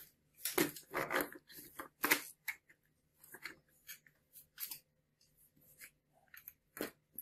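Plastic toy tractor and loose plastic wheels handled and set down on a wooden table: irregular clicks and knocks, the loudest in the first two seconds and a single sharp one near the end.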